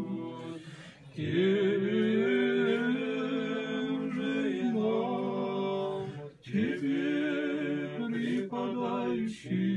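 Male voices chanting an Orthodox church hymn to the Mother of God unaccompanied, drawing out long melismatic phrases over a held low note.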